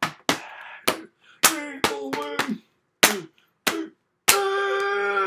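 A person's voice making play-fight sound effects: a string of sharp smacks or plosive bursts, several trailing into short cries that drop in pitch, then one long held vocal note starting about four seconds in.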